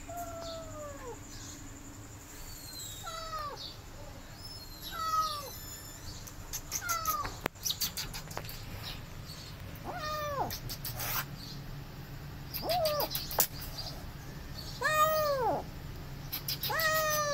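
Frightened feral kittens meowing over and over, about eight falling cries a couple of seconds apart, with short bursts of hissing and spitting between them.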